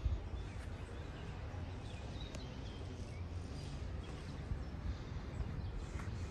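Outdoor ambience while walking: footsteps, a few faint bird chirps and a steady low rumble.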